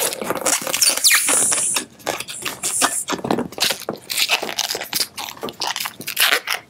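Red 160 latex balloon rubbing and squeaking in the hands as it is worked and knotted at the nozzle, a quick run of small squeaks and crackles, with a short hiss about a second in.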